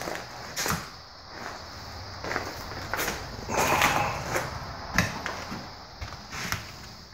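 Footsteps and scuffs on an old, debris-strewn wooden floor: scattered knocks and creaks, with a louder scuffing noise about halfway through and a sharp knock a second later.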